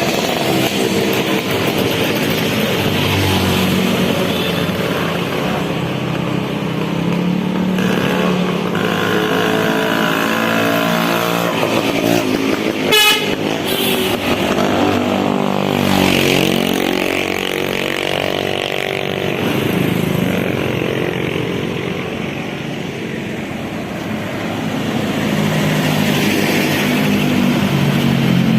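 Tour bus 'telolet basuri' multi-tone air horn playing a winding melody of stepped notes, on and on, over bus engine and traffic noise. A short loud burst comes about halfway, and the horn fades for a few seconds before picking up again near the end.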